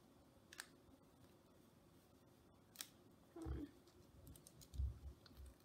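Faint handling sounds of a rubber band being wound tight around a folded cloth mask: a few light clicks and snaps, with soft low thumps in the second half.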